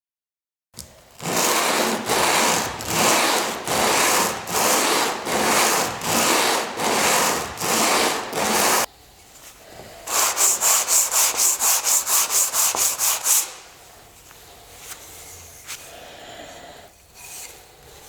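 Handsaw cutting through a wooden board in steady back-and-forth strokes, about two a second. After a short pause come a few seconds of quicker, shorter strokes.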